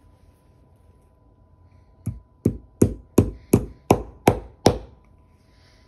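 Eight quick hammer blows, about three a second, starting about two seconds in: nails being driven into the end of a wooden hammer handle through the eye of a ball-peen head, standing in for a lost wedge to spread the handle and lock the head on.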